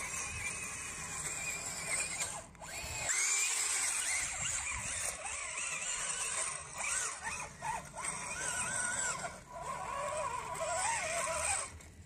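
Electric drive motors of a Bwine Q111 RC tracked crawler whining as it drives. The pitch rises and falls repeatedly as it speeds up and slows down.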